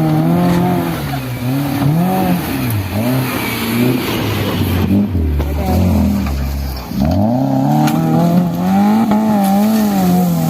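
Modified Maruti Gypsy's engine revving up and down over and over under load. About six seconds in the revs sag to a low labouring note, close to stalling, then climb back up.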